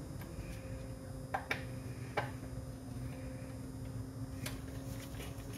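A few sharp, separate metallic clicks from a socket wrench being worked on the oil drain plug of a Porsche Boxster 986, over a steady low hum.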